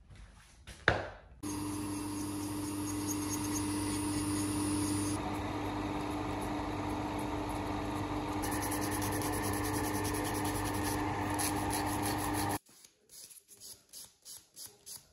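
A sharp knock about a second in, then a nail-table dust extractor running with a steady hum that cuts off suddenly near the end. After it stops, a hand nail file rasps across a nail in short repeated strokes.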